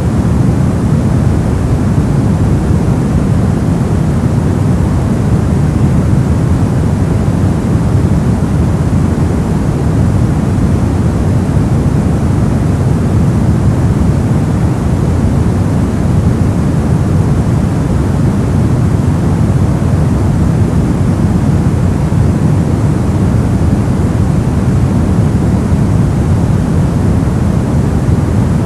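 Brown noise: a steady, deep rushing hiss with most of its weight in the lows, unchanging throughout.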